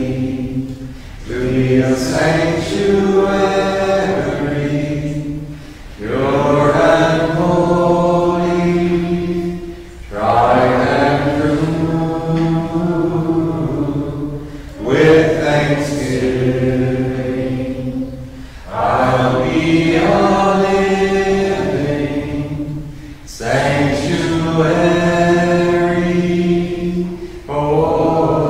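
Unaccompanied chant-style singing of a Communion hymn in phrases of four or five seconds, each followed by a short pause for breath.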